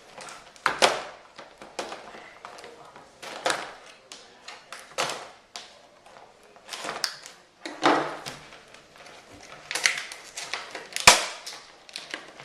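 Packaging being handled during an unboxing: irregular rustles, scrapes and sharp clicks of cardboard and plastic, with one louder click near the end.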